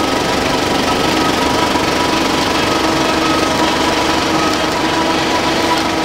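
IMAX 15/70 film projector and its film platter running: a loud, steady, fast mechanical clatter with a few steady tones in it.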